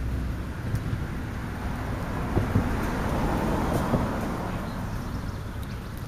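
A passing car: a rush of tyre and engine noise that swells to its loudest about three to four seconds in, then fades.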